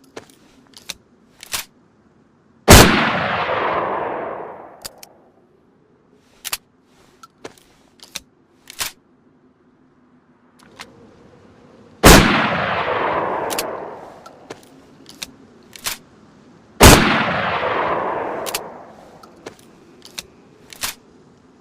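Three shots from a BK-12 single-shot shotgun, about nine and then five seconds apart, each followed by a long echoing tail. Between the shots come a series of short sharp clicks and knocks, typical of the single-shot action being opened and reloaded.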